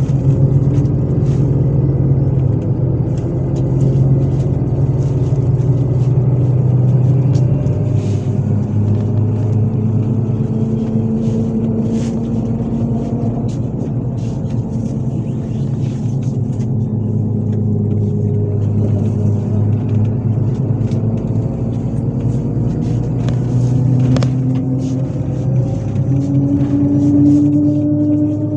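MAZ 103 city bus heard from inside the passenger cabin while driving: a steady engine and drivetrain drone with road noise and light clicks, its pitch rising and falling with speed and climbing again near the end.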